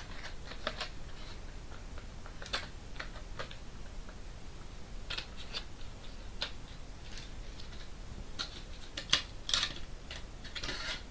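Sticky cotton swab scratching and crackling in an ear, close to the microphone, in short irregular strokes, with a longer rubbing rustle near the end.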